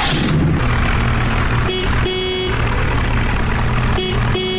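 Diesel engine of heavy machinery running steadily, while a vehicle horn sounds twice in a short-then-long double honk, about two seconds apart.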